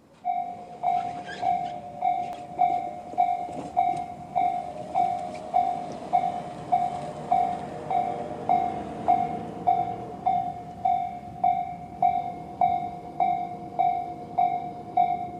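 Japanese level-crossing electronic warning bell, the slow-tempo Tobu 'sound C' type, switching on and ringing a steady, even ding about five times every three seconds. It is the sign that a train is approaching and the crossing is closing.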